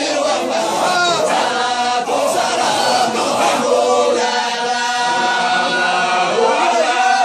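A group of men chanting in unison in a Sufi dhikr, their voices running on without a break.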